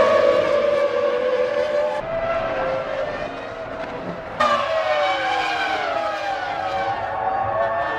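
Formula One cars' 3-litre V10 engines at high revs, with the pitch sliding and falling as the cars pass and shift. The sound changes abruptly about two seconds in and again around the middle.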